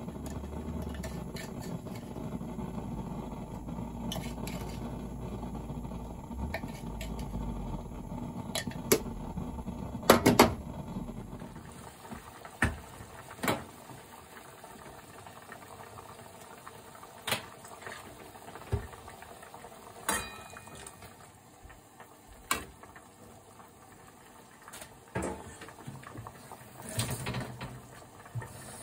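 Sea bream heads boiling in a stainless saucepan on a stove. At first there is a steady low rumble. After about twelve seconds it turns to quieter bubbling with scattered sharp clicks.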